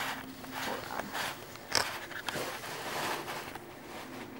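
Packaging being handled, rustling and crinkling in irregular bursts, with one sharp click a little under two seconds in.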